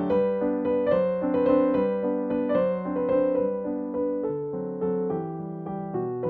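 Background piano music: a gentle melody of single struck notes over soft held chords.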